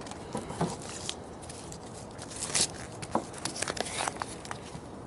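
A small boxed sound level meter being unpacked by hand: packaging rustling and tearing, with scattered light clicks and taps as it is handled.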